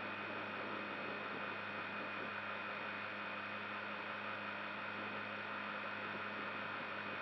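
Steady hiss with a low hum and a thin high whine, unchanging throughout: electrical noise in the onboard action camera's audio while the crashed quadcopter lies still with its motors stopped.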